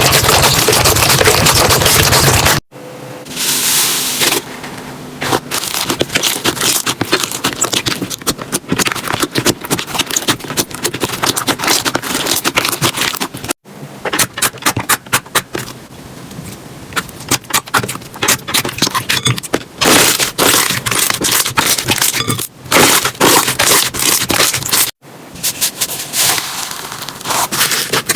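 Slime being squished and pressed by hand, making rapid runs of sticky crackles and pops. The sound breaks off abruptly three times where one clip cuts to the next.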